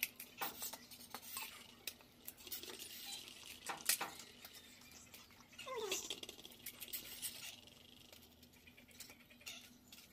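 Light clicks and clinks of a steel spoon against a steel bowl and of dry puchka shells being cracked and handled, with one short call falling in pitch about six seconds in.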